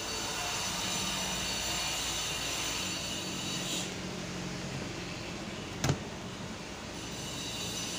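Steady background rumble and hiss, with a single sharp click about six seconds in.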